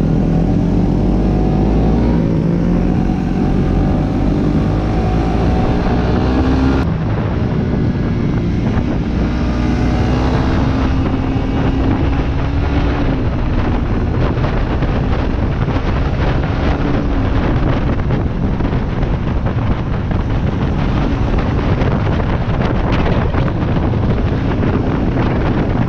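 Motorcycle engine accelerating, its pitch climbing twice over the first dozen seconds, then running steadily under heavy wind rush on the microphone.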